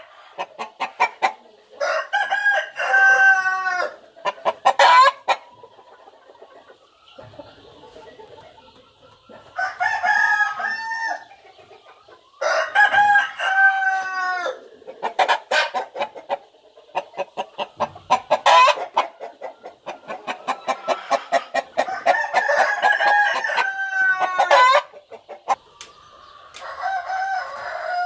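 Roosters crowing again and again: five or six long crows a few seconds apart, with short quick clucks between them.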